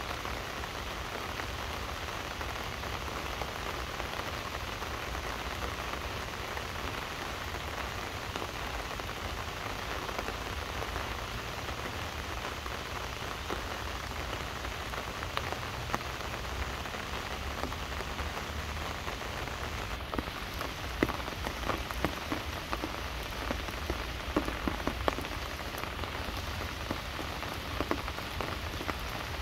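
Steady rain falling, an even hiss, with louder single drops striking close by now and then in the second half.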